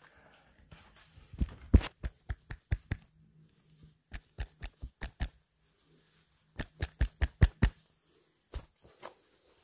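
Fingers tapping and handling a smartphone right against its microphone: three quick runs of sharp taps, about five a second, with one last tap near the end.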